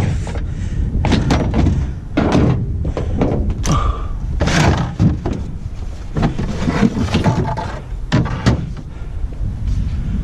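Repeated thunks and knocks of metal gear being handled, as a come-along hoist is got out and set up, over a steady low rumble.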